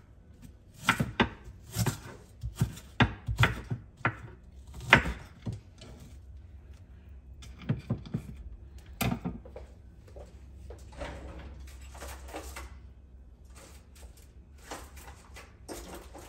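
Kitchen knife chopping a small piece of onion on a cutting board: a run of irregular sharp knocks in the first five seconds, a few more about eight and nine seconds in, then only faint handling sounds.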